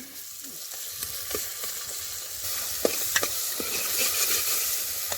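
Tadka spices sizzling in hot oil in a pressure cooker, a steady frying hiss that grows a little louder, broken by a few sharp clicks.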